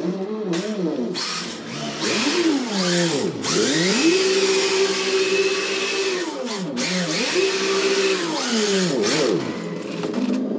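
RC drift car's speaker sound module imitating a Nissan RB26 straight-six, revving up and down over and over and held at high revs twice, about four and seven seconds in. Under it runs a hiss of the tyres sliding on the concrete floor.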